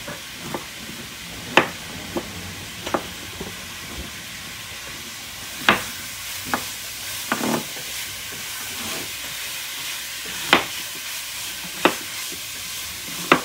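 Kitchen knife slicing through an Italian gourd and knocking on a plastic cutting board: about a dozen sharp knocks at irregular spacing, over a steady hiss.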